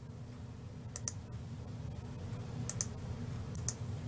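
Computer mouse clicking three times, each click a quick double tick, over a faint low steady hum.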